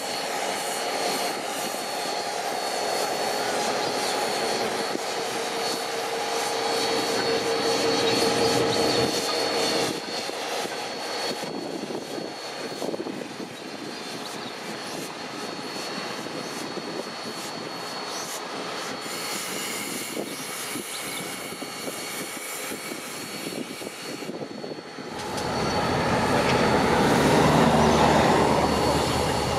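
BB18¼ steam locomotive 1089 moving slowly, with a steady mechanical drone. About 25 seconds in it gives way abruptly to the louder, lower rumble of a diesel locomotive engine (Queensland Rail 1732) running.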